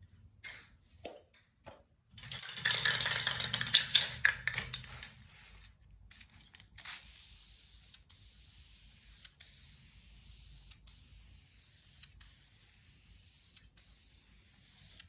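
Metalwork on a steel door patch panel: a few light clicks, then a loud crackling burst of about three seconds. After that a tool hisses steadily at a high pitch in runs of one to two seconds, with brief breaks between them.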